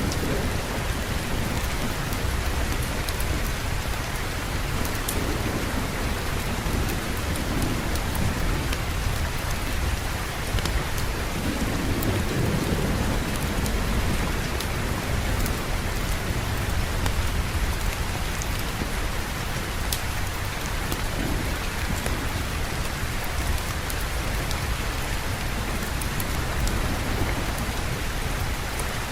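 Steady heavy rain with thunder rumbling low in the background, swelling most about twelve seconds in, and scattered fine ticks of drops or crackle over the rain.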